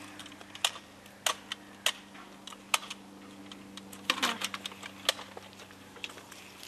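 Irregular sharp clicks and crackles, roughly one every half second to second, with a quick cluster of them about four seconds in, over a low steady hum.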